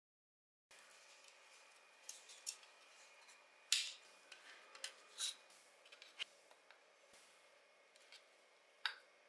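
Small plastic parts of a scale model car's interior being handled and fitted together: a series of sharp clicks and taps over faint hiss, the loudest a little under four seconds in and another near the end.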